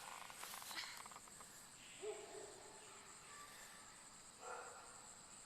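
Crickets singing, a faint, steady high-pitched trill, with a few soft brief noises over it.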